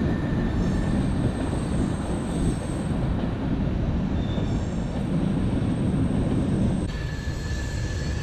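Freight train of covered hopper cars rolling past: a steady rumble of wheels on rail, with a thin high squeal coming and going. The sound shifts a little near the end.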